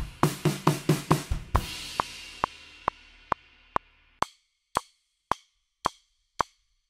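Drum kit fill: a quick run of tom and bass drum hits ending on a cymbal crash that rings out and fades. Then steady sharp clicks, about two a second, with silence between them.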